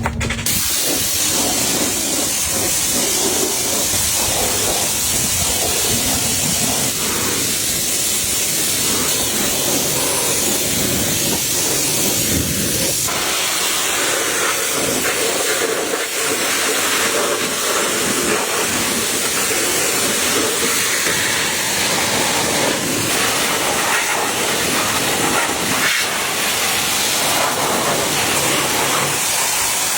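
Pressure washer spraying water in a steady hiss, its sound changing about 13 seconds in as the spray shifts.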